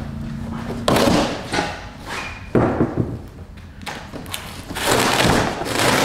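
Cardboard packaging being handled and pulled apart: a sharp thud about a second in, another a second and a half later, then a longer scraping rustle of cardboard sheets near the end.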